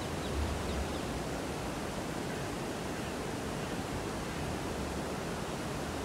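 Steady rush of flowing water, an even hiss with no breaks, with a low rumble swelling briefly now and then underneath.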